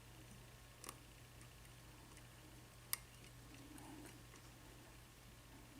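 Near silence with two faint clicks about two seconds apart: a lock pick working the pin tumblers of a five-pin Waterbury padlock held in a false set. A steady low hum runs underneath.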